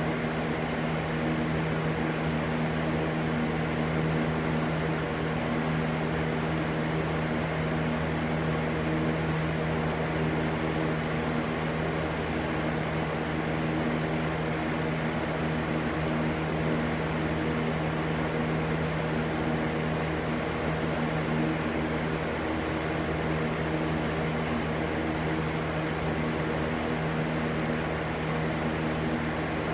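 Electric fan running steadily: a constant motor hum under an even whooshing rush of air, used as white noise.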